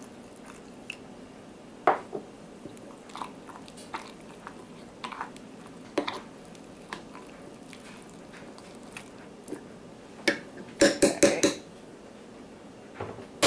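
A metal spoon stirring sourdough starter in a glass jar: soft wet mixing with an occasional clink of spoon on glass about once a second. About ten seconds in comes a quick run of five or so louder clinks.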